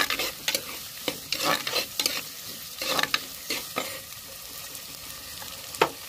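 A steel ladle scraping and stirring chopped onions, curry leaves and chillies as they fry in oil in a clay pot, over a steady sizzle. The strokes stop about four seconds in, leaving the sizzle, and one sharp tap of the ladle comes near the end.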